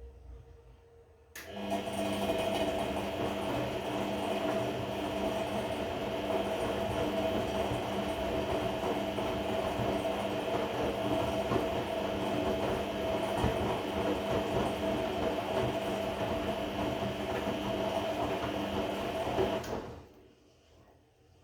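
Regal 1229 T washing machine's motor turning the drum during a cotton 30°C wash: a steady mechanical whine with several tones, starting abruptly about a second and a half in and cutting off about twenty seconds in. It is the odd noise that sounds like a belt, the fault the owner is showing.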